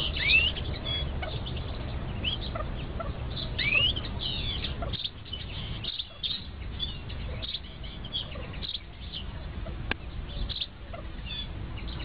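Partridge chicks peeping again and again in short, high, thin calls that slide up or down, huddled under the brooding hen, over a low rumble.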